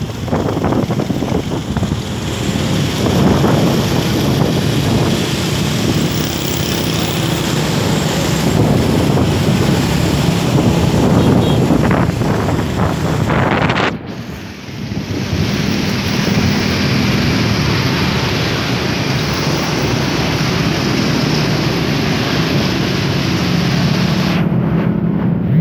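Wind buffeting the microphone of a moving motorcycle, over the hum of its engine and the surrounding motorbike traffic; the noise dips briefly about halfway through.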